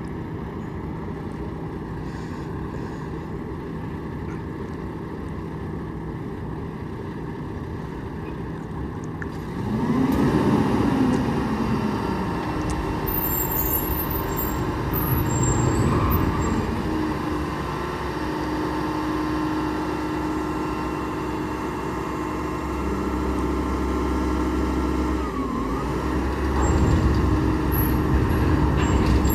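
Mack Granite roll-off truck's diesel engine idling steadily, then revving up about ten seconds in and running louder and unevenly, rising and falling, for the rest of the stretch.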